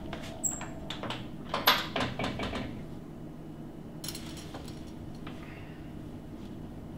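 Metal belt buckle clinking and jingling with clothes rustling as trousers are undone and pulled down, a quick run of clinks over about two seconds, then a fainter rattle later. A steady low hum runs underneath.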